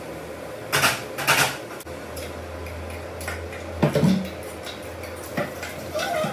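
Metal ladle clanking and scraping against cooking pots on a stove: two longer scrapes about a second in, then scattered sharp knocks, over a steady low hum.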